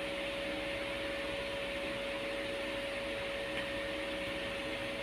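Steady hum and hiss of a running electric fan, with one constant pitched tone over it.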